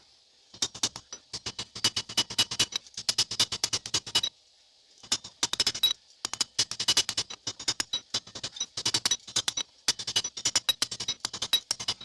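Hammer striking hot 5160 steel on an anvil while forging a knife blade: fast runs of blows, several a second, with short pauses between runs, each strike ringing with a bright metallic tone.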